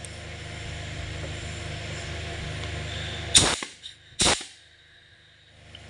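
Compressed air blown into the pressure feed port of a forklift transmission's clutch drum to test that the clutch pack engages: a steady rushing noise, then two short, sharp blasts of air about a second apart.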